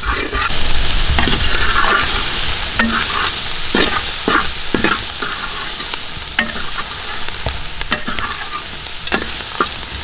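Shallots, garlic and green chillies sizzling in hot coconut oil in an earthen clay pot, stirred with a wooden spatula that scrapes and knocks against the pot many times.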